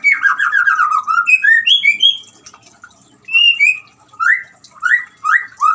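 White-rumped shama singing: loud, rich whistled phrases of rising slurs and quick runs of notes, with a short pause about two seconds in.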